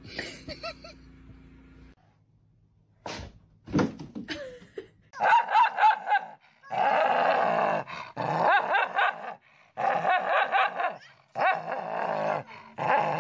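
A dog barking and growling in long, snarling bouts with short breaks between them, after a few short sharp sounds.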